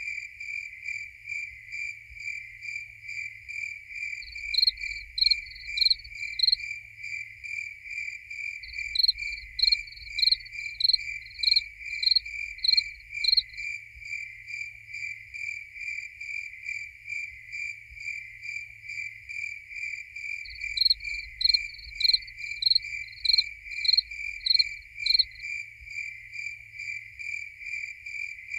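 Crickets chirping: one keeps up a steady, even chirping, while a second, louder and higher-pitched cricket joins in runs of quick chirps, about two a second. The runs come about four seconds in, from about nine to thirteen seconds, and from about twenty-one to twenty-five seconds.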